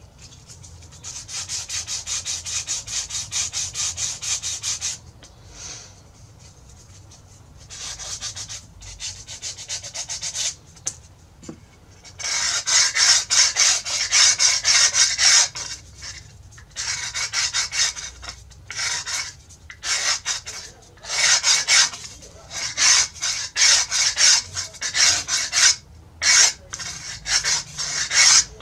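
Hand sanding of a padauk rosette inlaid in a guitar top: rapid back-and-forth rubbing strokes on wood, in bursts of a few seconds with short pauses between them.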